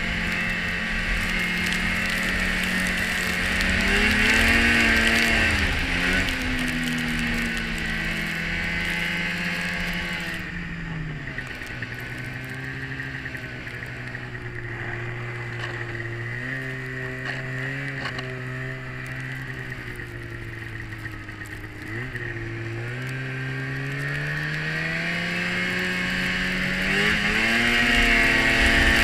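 Polaris Indy 550 LXT snowmobile's two-stroke twin engine under way, revving up briefly about four seconds in, easing off to a low steady drone from about eleven seconds, then climbing back up in pitch and loudness near the end as it accelerates.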